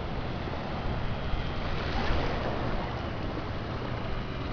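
Steady wind and surf noise with the low drone of an ultralight flying boat's engine as the craft approaches overhead.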